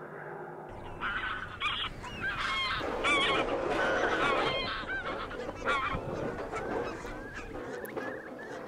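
A flock of geese honking, with many calls overlapping, starting about a second in over a low rumble.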